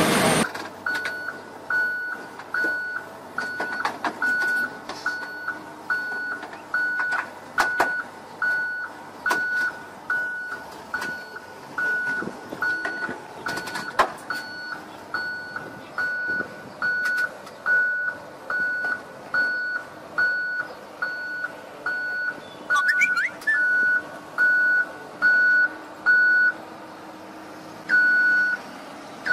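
Heavy-equipment backup alarm beeping steadily, about one and a half beeps a second, pausing once briefly near the end, with scattered sharp clicks.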